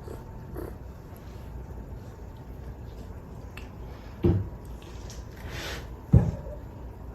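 Two sharp thumps about two seconds apart, over a low steady rumble.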